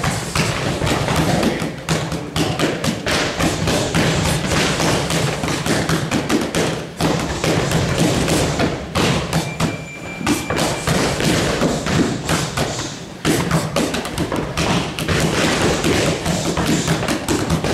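Boxing gloves hitting focus mitts in fast, continuous combinations of thuds, several a second, with a couple of brief breaks.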